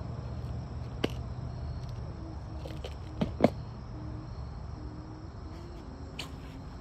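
Crickets and other night insects trilling steadily in high, continuous tones. A few sharp clicks break through, about a second in and twice around three and a half seconds in, the last the loudest.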